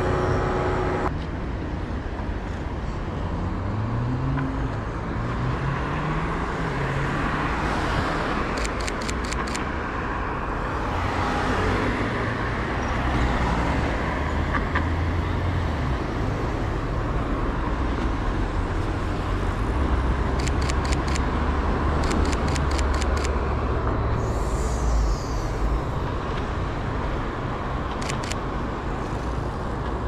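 City street traffic noise: vehicles running and passing, with one engine rising in pitch a few seconds in. Short runs of rapid clicks come several times.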